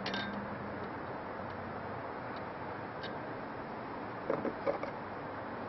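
A few light clicks and taps of small metal parts being fitted onto a steering wheel hub, over a steady background hiss.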